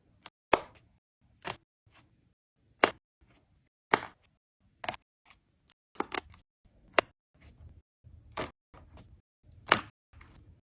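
Slime being pressed and squeezed by hand, giving sharp clicks and pops at an irregular pace of about one or two a second, with a soft squelching rustle between them.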